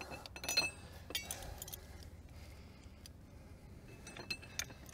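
Light metal-on-metal clinks from a steel punch and chain being handled against a steel excavator track link. There is one sharper clink about half a second in and a small cluster of clinks near the end.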